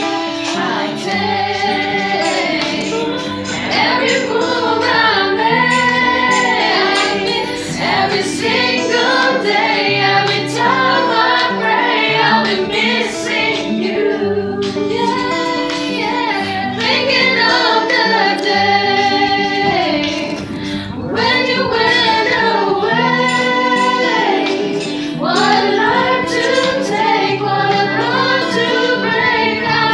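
A small mixed group of amateur voices singing together, several women prominent, over a steady acoustic guitar accompaniment.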